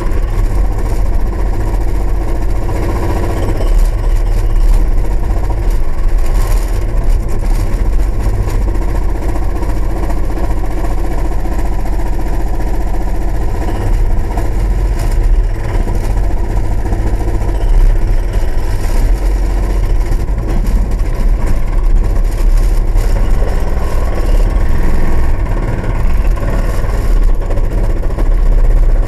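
Mini excavator's diesel engine running hard, heard inside the cab, with the hydraulic breaker on the arm hammering concrete in rapid, continuous blows.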